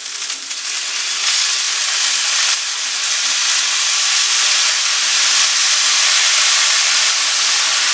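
Soy sauce hitting the hot chow mein noodles and oil in the pan, setting off a loud, steady sizzling hiss that builds over about the first second and then holds.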